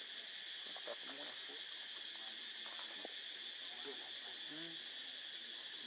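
Steady, high-pitched chorus of insects with a fast, even pulse, with faint voices now and then underneath.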